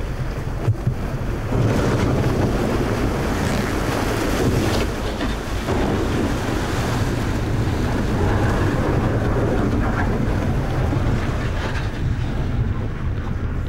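The Russian ship Viktor Buynitskiy ploughing through fjord sea ice: a steady, heavy rumble of the hull grinding through the ice, with wind buffeting the microphone. It grows louder about a second and a half in.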